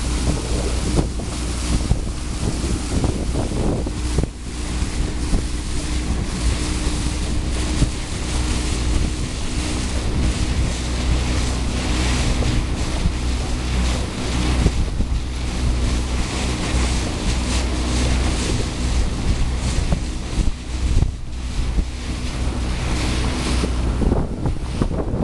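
Wind buffeting the microphone over the steady drone of a boat's engine and the rush of water past a moving hull.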